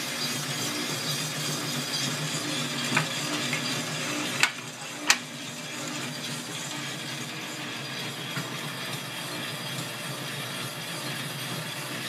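US Roaster Corp one-pound sample drum roaster running: a steady motor hum under the rattle of coffee beans tumbling in the rotating drum. There are three sharp clicks between about three and five seconds in, the last two loudest.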